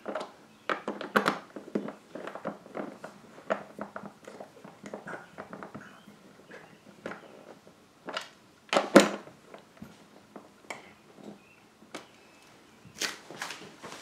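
Hand screwdriver turning the screws that hold a refrigerator's plastic water-dispenser panel: a run of small clicks and scrapes, with a sharper double knock about nine seconds in.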